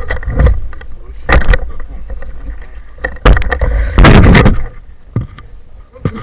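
Handling noise from a phone camera being jostled about in a boat: irregular knocks, thuds and rubbing on the microphone over a low rumble. The longest and loudest burst comes about four seconds in.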